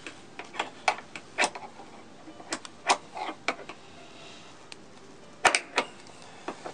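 Metal snap hook of a Willans racing harness strap clicking and clinking against its floor eye-bolt anchor as it is hooked on by hand: irregular sharp clicks, the loudest about five and a half seconds in.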